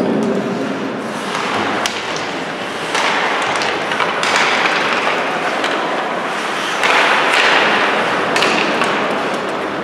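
Ice hockey play on a rink: skate blades scraping and carving on the ice, swelling twice, with scattered sharp clacks of sticks and puck.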